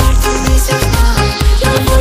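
Loud music with a steady, heavy bass beat.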